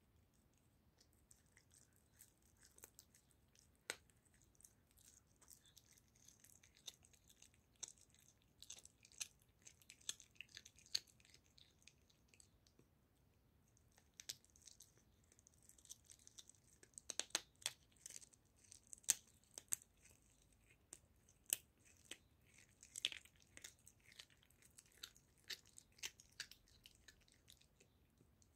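A cat chewing and tearing at a raw goose neck: irregular sharp clicks and crunches of teeth on raw meat and bone. The chewing is sparse for a moment near the middle and busiest in the second half.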